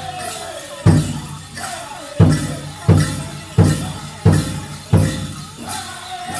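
Powwow drum group singing a chicken dance song, struck on a large powwow drum with six heavy beats, most about 0.7 s apart, and a jingling like bells running beneath.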